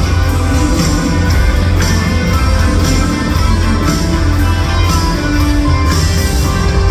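Live rock band playing loud through a concert sound system: electric guitar over steady bass and drums, with a drum hit about once a second.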